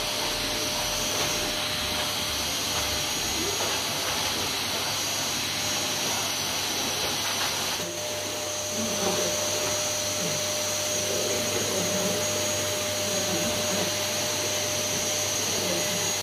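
Canister vacuum cleaner running steadily, a constant rushing noise with a thin high whine over it, dipping slightly in level about eight seconds in.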